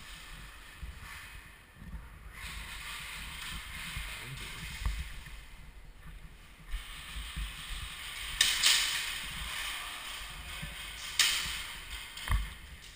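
Rustling and shuffling of an airsoft player's clothing and gear against a body-worn camera as he moves through a doorway, with three sharp knocks in the second half.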